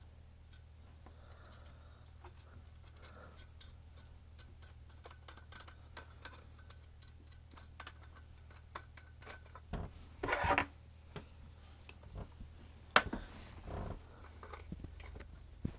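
Small metallic clicks and clinks of stainless washers, nylock nuts and a wrench being handled on a wind generator's bolted hub plate, with a short rustle about ten seconds in and one sharp clink about thirteen seconds in. A steady low hum runs underneath.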